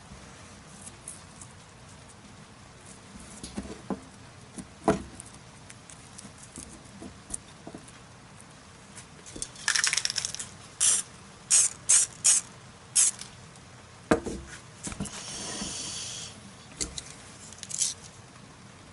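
Aerosol spray-paint can spraying black paint onto small model parts in a run of short hissing bursts about halfway through, followed by a softer, longer hiss. Light clicks and taps before and after.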